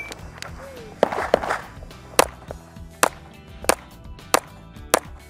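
Pistol shots, seven in about four seconds: two in quick succession about a second in, then five more evenly spaced about two-thirds of a second apart. Background music runs under them.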